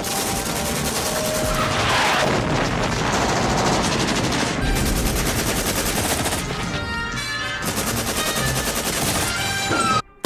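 Continuous rapid automatic gunfire from a film battle scene, the M60 machine gun firing among other guns. The firing stops abruptly near the end.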